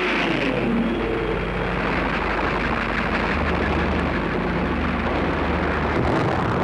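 Lancaster bomber's engines passing low overhead, their pitch falling in the first second, then a steady, dense rumble.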